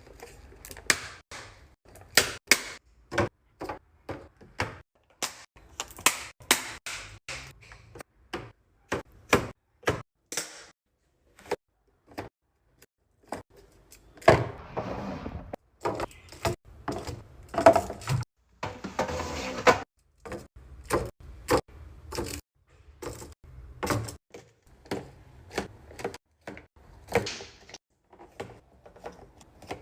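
Restocking sounds from items and plastic containers being handled and set down: many irregular clacks and knocks, with two longer noisy stretches near the middle.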